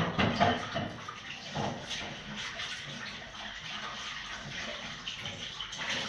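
Sheet of paper rustling and crinkling in the hands as it is rolled and fitted as a funnel into a balloon's mouth, with a cluster of louder crackles at the start.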